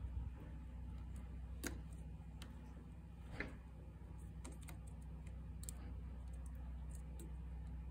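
Small clicks and taps of hands handling plastic fuel injector plugs and their wiring, a few sharper clicks standing out among them, over a steady low hum.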